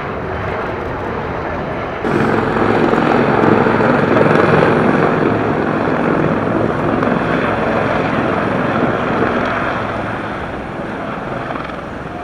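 A pair of AgustaWestland Wildcat twin-turboshaft helicopters flying past in close formation, with the rotors and turbines making a steady noise. The noise jumps louder about two seconds in and fades toward the end.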